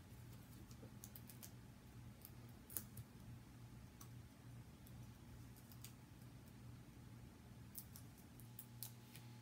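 Near silence over a low steady hum, broken by faint light clicks from handling small cardstock pieces and foam adhesive dimensionals: one sharper click about three seconds in and a few more close together near the end.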